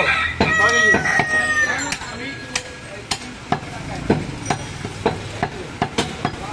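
Cleaver chopping goat meat on a wooden block, sharp chops about twice a second. A long, drawn-out pitched call sounds over the first two seconds.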